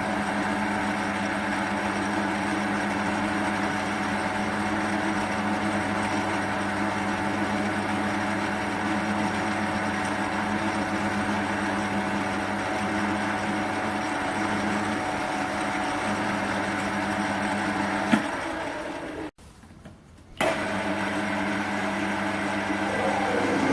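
Electric machine-tool motor running steadily while drilling a hole into the end of a steel bolt. The hum cuts out briefly near the end and then carries on.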